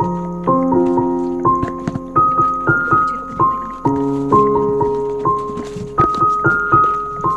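Background piano music: a slow, gentle melody of single struck notes over sustained lower notes, at about two notes a second.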